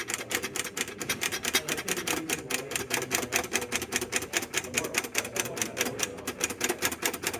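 Vintage toy typewriter being typed on quickly: a fast, even run of sharp key clacks, several strokes a second.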